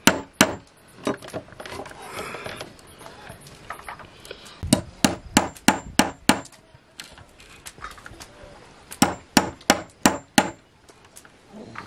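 Claw hammer driving a nail into a wooden door plank: sharp strikes of metal on metal and wood in quick runs of five or six blows, with pauses between the runs.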